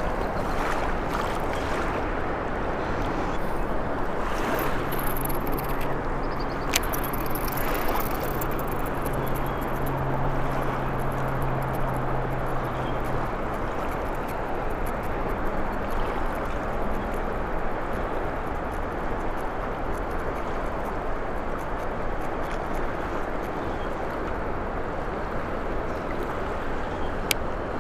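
Steady rushing noise of a flowing river. A low steady hum comes in about four seconds in and fades about halfway through, and there is a sharp click twice.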